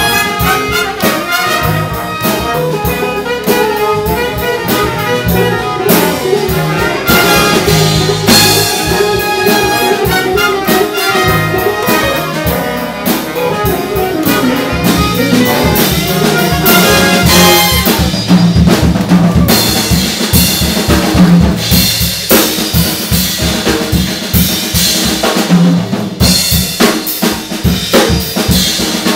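Big-band jazz ensemble playing, trumpets and trombones in full ensemble over a drum kit. Near the end the horns drop out and the drums carry on alone.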